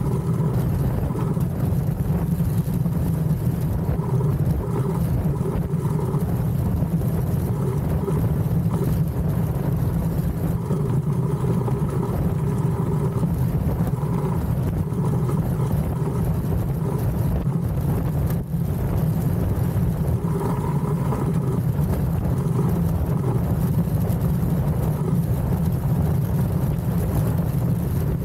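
DN-class iceboat sailing at speed: a steady low rumble of its steel runners on the ice, mixed with rushing wind.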